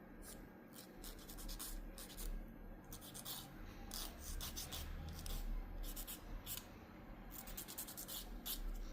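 Nail file rubbing against a fingernail in quick, uneven scratchy strokes, smoothing a repaired nail.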